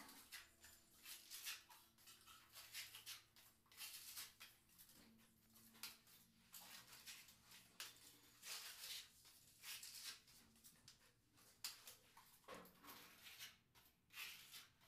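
Putty blade spreading wall putty across a wall surface: a faint series of irregular scraping strokes, each a short swipe under a second long.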